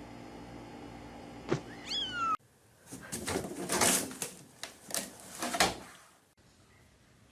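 A domestic cat gives one short meow that rises and falls, over a steady background hum. After a sudden cut, a string of loud, noisy bursts follows for a few seconds.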